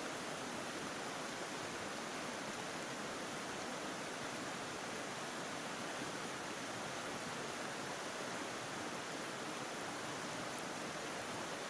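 Steady rush of a shallow river running over stones and gravel, an even hiss that holds at one level throughout.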